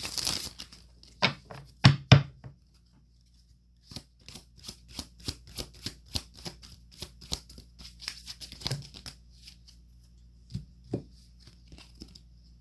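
Oracle cards being shuffled and handled by hand: a brief shuffle at the start, a few sharp taps, then a run of crisp card snaps about three a second, and two last taps near the end.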